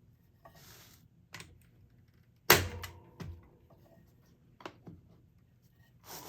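A hand staple gun fires once with a sharp snap and a short metallic ring about two and a half seconds in, driving a staple through the canvas into the wooden frame. Lighter clicks and a brief rustle of handling come before and after it.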